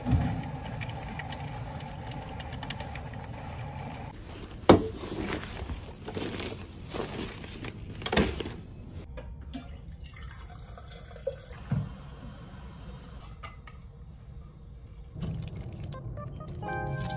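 A steady room hum, then a few sharp knocks and clunks as things are put down and handled on a counter.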